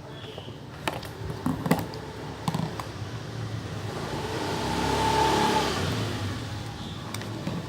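A motor vehicle passing by, its engine and road noise swelling to a peak about five seconds in, then fading. A few short clicks come in the first three seconds.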